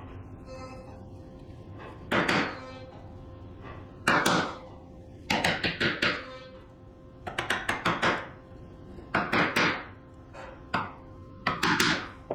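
A bench chisel being struck to chop waste out of walnut dovetail tails: sharp strikes, some single and some in quick runs of three to five, a few with a brief metallic ring.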